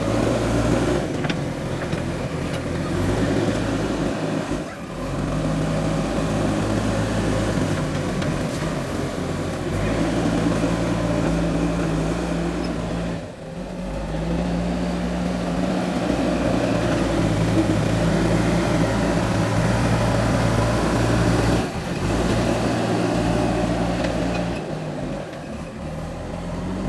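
JCB 3DX backhoe loader's diesel engine running under working load, its speed stepping up and down as the machine works, with three brief drops in level.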